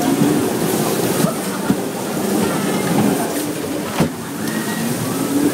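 Bumper-car rink noise heard from inside a moving dodgem: a steady, noisy rumble with a few sharp knocks, the loudest about four seconds in.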